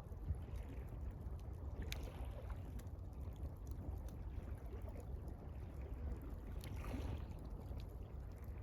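Water lapping gently at the shore, with sparse small crackles from a campfire over a steady low rumble.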